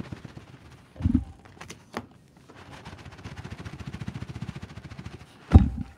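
Large cardboard collectible box held upside down and shaken so its packed contents slide out: a quick, even rattle of packaging inside the box, with a dull thump about a second in and a louder thump near the end.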